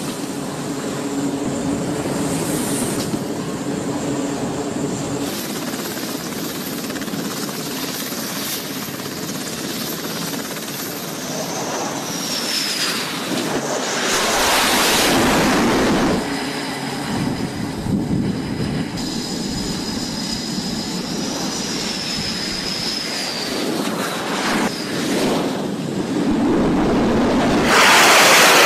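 Carrier flight-deck aircraft noise: at first the steady drone of an E-2 Hawkeye's turboprop engines, then F/A-18 jet engines as a fighter comes in to land. The jet noise swells loudly about halfway through and again near the end, with whining glides in pitch between.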